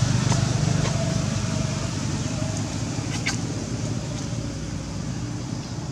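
Steady low rumble of a motor vehicle engine, slowly fading, with a few faint short clicks, the clearest about three seconds in.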